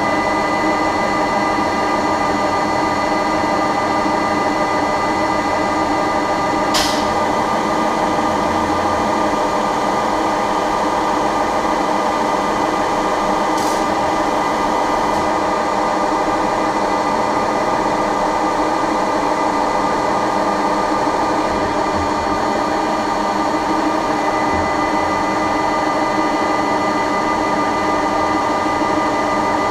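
KZh1844 special rolling machine running steadily, a constant hum made up of several steady tones. Two sharp clicks cut through it, one about seven seconds in and another about halfway through.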